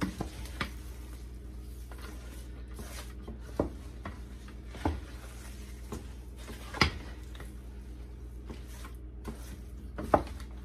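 Wooden spoon stirring shredded cabbage into a thick sauce in a large stainless steel stockpot. The spoon knocks sharply against the pot about six times at irregular intervals, over a steady low hum.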